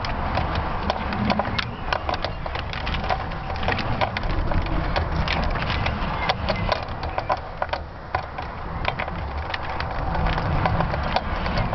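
Wind buffeting the microphone of a camera hanging under a rising balloon payload: a steady low rumble, with frequent sharp crackles and clicks from the payload as it swings and spins.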